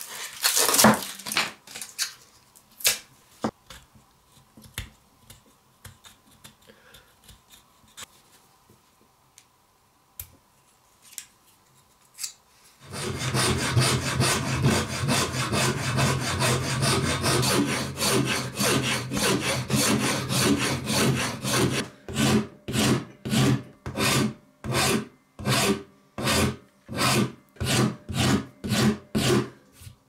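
Hand file rasping a block of wood clamped in a bench vise: a continuous rasping starts about halfway through, then breaks into separate strokes about two a second. Before that, brief rubbing of P120 sandpaper on a pocket knife and scattered light scrapes and clicks over a quieter stretch.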